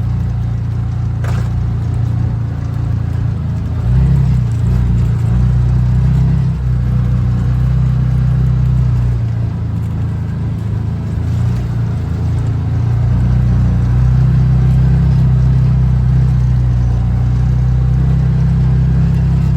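Vehicle driving, heard from inside the cab: a steady low drone of engine and road noise that swells a little now and then.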